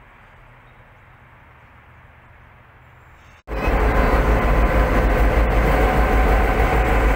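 Faint distant rail and traffic hiss at first. About halfway through it suddenly turns loud as a Queensland Rail diesel locomotive, number 2414, runs close past at a station platform with a heavy deep engine rumble and steady tones above it.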